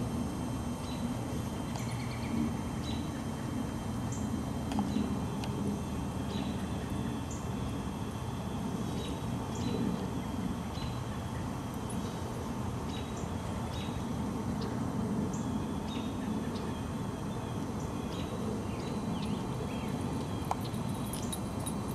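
Wild birds chirping, short high calls scattered here and there, over a steady low rumble of outdoor background noise.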